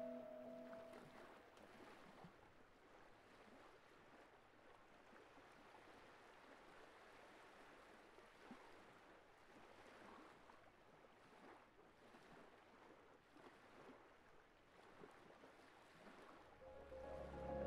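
Faint water sloshing and splashing as Asian elephants wade and bathe in a lake. Music fades out in the first second and comes in again near the end.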